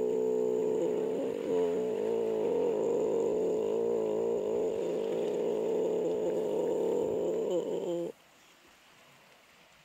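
Sustained layered tones, several pitches held together and wavering slowly, that cut off suddenly about eight seconds in, leaving only a faint background hiss.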